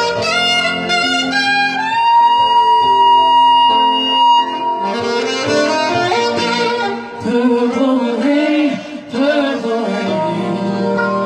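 Saxophone soloing over a live band: a long held high note for about two seconds, then a run of bending, swooping phrases, with the band's chords held underneath.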